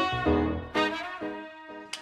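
Background music led by brass: a run of short held notes, about two a second, growing quieter near the end.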